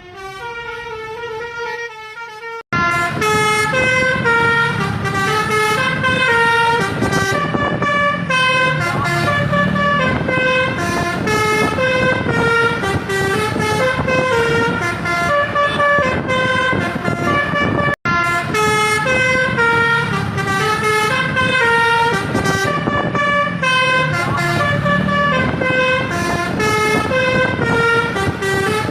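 A bus's basuri telolet horn, a multi-tone melodic air horn, playing a quick stepping tune of many short notes. It breaks off abruptly about two and a half seconds in and again about halfway through, then carries on.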